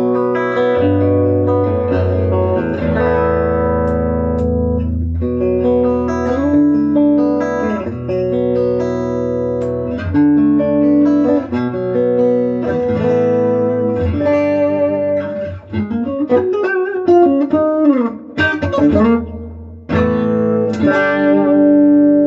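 Electric guitar played through a repaired Bugera V22 Infinium tube combo amp, which sounds pretty good. Held chords ring out, then about two-thirds of the way through come quicker single notes with bent, wavering pitches, before chords return near the end.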